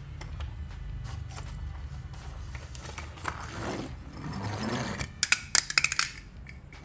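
Die-cast toy car rolling and scraping across a corrugated plastic board, then a quick run of sharp clicks and clatters about five seconds in, as the small metal-and-plastic car hits a hard tile floor.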